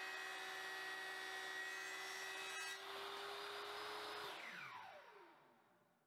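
Table saw running with its blade in a cut through wood, a steady motor whine. About four seconds in the saw is switched off, and the whine falls in pitch and fades as the blade spins down.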